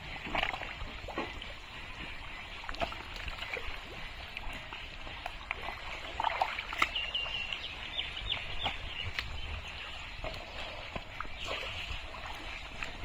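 Splashing and squelching of thick mud and muddy water as a person wades through it and grabs at fish, in irregular short splashes. A bird chirps briefly about seven seconds in.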